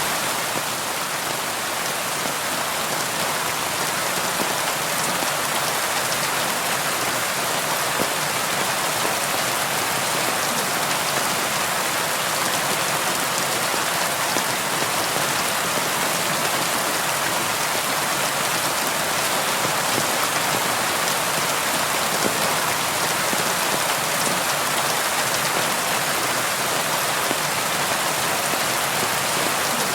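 Steady rain falling on a window, an even hiss of drops that neither builds nor fades.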